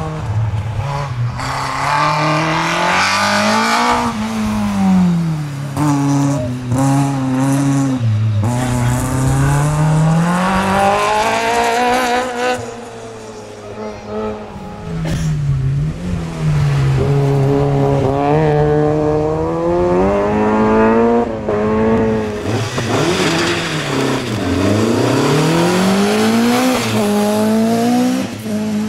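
Hillclimb race cars at full throttle passing one after another, each engine's pitch climbing and dropping back with every gear change. The sound fades for a few seconds in the middle before the next car comes up loud.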